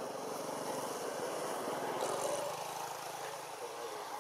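A motor engine droning as it passes by, swelling to its loudest about two seconds in and fading away after about three and a half seconds.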